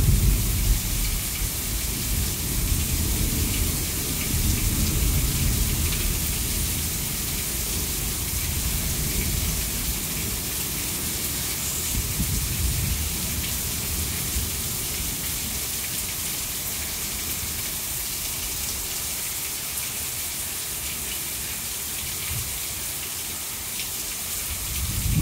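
Heavy rain pouring steadily, with sheets of water running off the roof edge. A roll of thunder dies away in the first second. Weaker low rumbles of thunder come and go after it, and another low rumble starts to build near the end.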